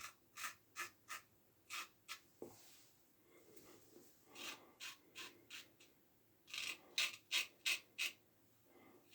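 A circa-1907 Ever-Ready single-edge safety razor with a fresh carbon blade scraping through lathered stubble in short, quick strokes. The faint rasps come in clusters, and the last group, a little past the middle, is the loudest.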